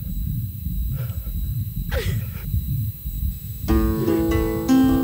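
Low rumbling background with two faint, breathy voice sounds, then slow plucked-string music starts about three and a half seconds in.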